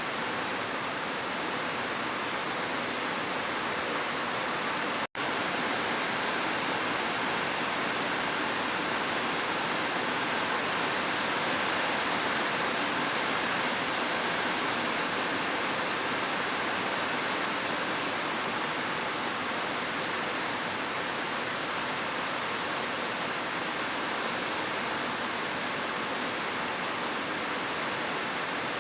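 Heavy rain falling as a steady, dense hiss with no separate drops standing out. It cuts out to silence for a split second about five seconds in.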